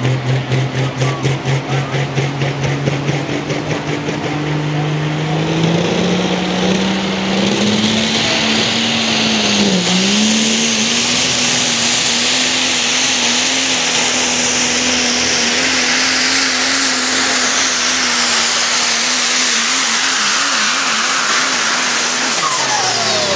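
Super stock diesel Dodge Ram pulling truck making a full pull. The engine pulses at low revs at first, climbs about five seconds in and dips briefly near ten seconds. It then runs flat out with a high whistle over it, and drops off sharply near the end as the pull finishes.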